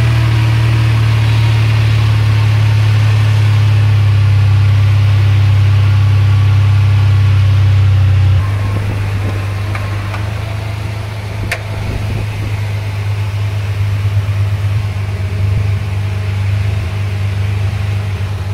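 Irrigation pump engine running steadily at pumping speed, then throttled down to a lower, quieter speed about eight seconds in, as the pump is being slowed to shut it down.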